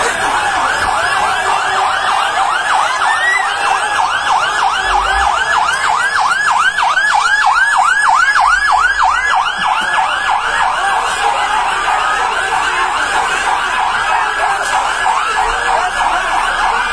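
Fire engine siren in fast yelp mode: a rapid rising-and-falling wail repeating about four to five times a second, fading somewhat near the end.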